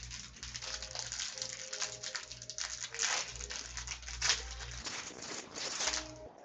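Trading cards and plastic card sleeves being handled by hand: continuous rustling and sliding of card stock and plastic, over a steady low hum.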